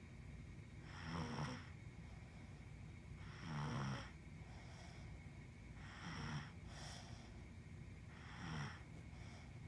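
Soft, slow snoring: four snores about two and a half seconds apart, each a short low rasp with a hissy edge. A faint steady high tone runs underneath.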